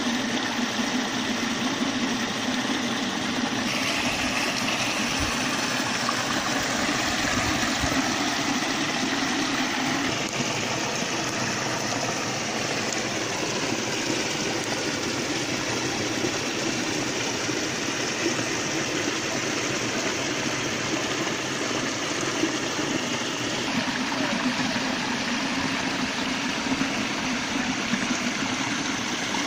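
Steady rush of stream water spilling and cascading over rock ledges into a pool.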